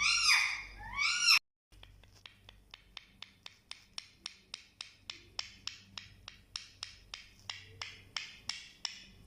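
Parrot giving a few loud rising-and-falling whistled calls, then, after a brief break, a quieter run of short sharp clicks, about three a second, that turn more chirp-like near the end.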